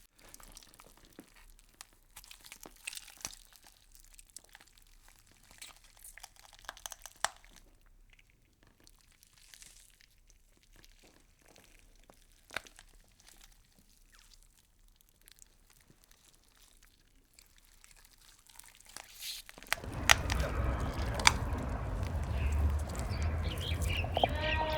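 Faint, sparse crunching and crackling of insects chewing leaves. About twenty seconds in, a much louder ambience with a low rumble takes over, with bird calls near the end.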